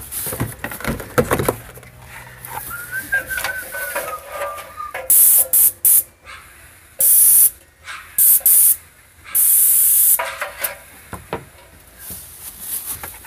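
Paint spray gun on a high-pressure hose, triggered in several short bursts of loud hissing spray, each under a second, in the second half.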